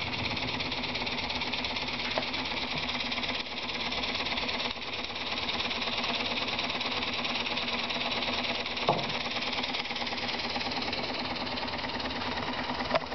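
Small brass model steam beam engine running steadily on steam from a Mamod Minor 1 boiler, with a fast, even mechanical beat.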